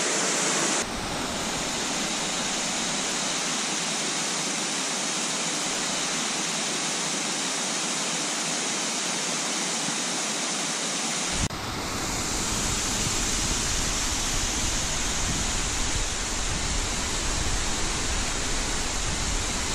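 Waterfall cascading down rock ledges: a steady rush of falling water. It changes abruptly about eleven seconds in and carries more low rumble after that.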